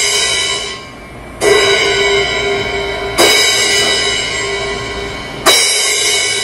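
Drum-kit cymbal struck three times with the same force, about two seconds apart, each hit ringing out and slowly fading. The strokes compare hitting out across the cymbal with hitting down into it.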